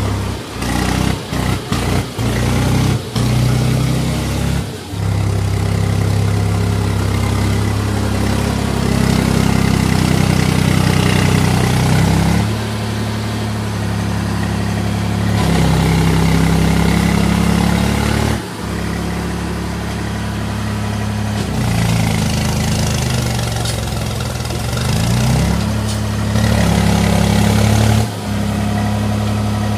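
Swaraj 834 XM tractor's diesel engine running hard, its pitch rising and falling as it is revved to drive the tractor out of deep mud where it is stuck. The sound breaks off abruptly several times in the first few seconds.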